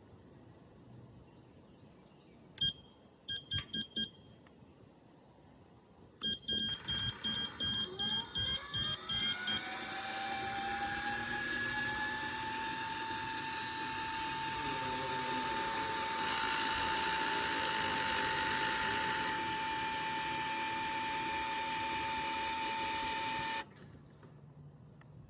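Ghost gate opener's control board beeping: one high beep, then a few quick beeps, then a run of rapid beeps at about three a second. Under the rapid beeps the opener's actuator motor starts with a whine that rises in pitch and then holds steady as it drives the gate arm. The motor stops suddenly shortly before the end, as the opener is being programmed.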